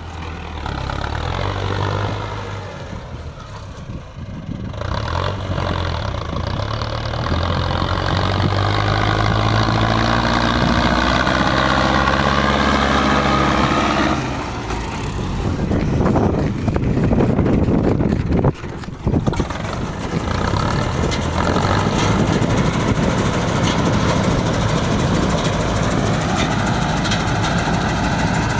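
Diesel engine of a Yanmar Arjun YH 700 combine harvester running, its note rising and falling in the first half. From about 14 to 20 seconds in, a louder rushing noise joins it, with a couple of brief drops, and then the engine settles to a steady run.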